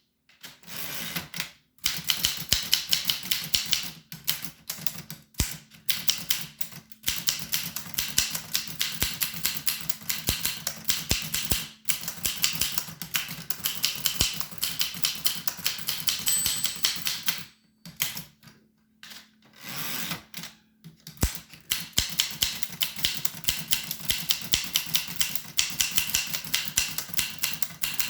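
An 1895 Williams No. 1 typewriter being typed on: quick runs of sharp keystroke clacks, broken by short pauses and a longer break about two thirds of the way through.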